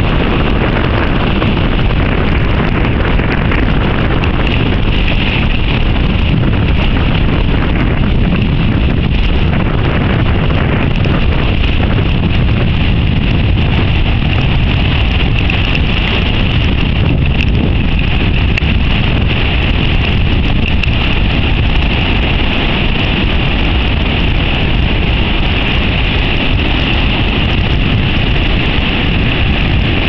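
Strong wind blowing across the camera microphone over heavy surf breaking on rocks: a loud, steady rushing noise with no separate wave crashes standing out.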